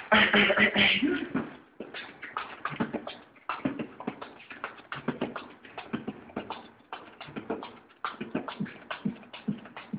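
Beatboxing: a man making drum sounds with his mouth and a cupped hand. It opens with a loud vocal sound for about a second and a half, then settles into a steady beat of short, sharp hits, several a second.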